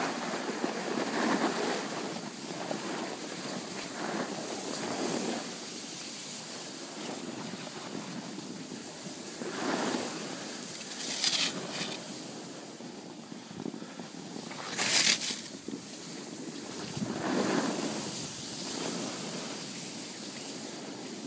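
Snowboard sliding and scraping over packed snow, a rushing hiss that swells and fades, with wind on the microphone. Two brief, sharper, brighter scrapes stand out about halfway through and again a few seconds later.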